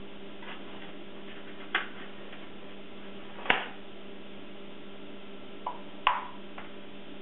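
Eggs tapped and cracked against the rim of a plastic mixing bowl: four sharp taps, loudest about three and a half and six seconds in, over a steady low hum.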